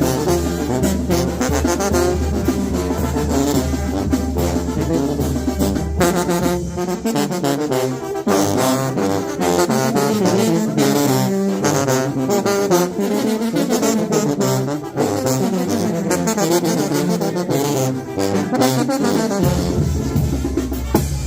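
Sinaloan brass band (banda tromba) playing live: trombones and trumpets over drums and a deep brass bass line. The bass drops out about six seconds in and comes back near the end.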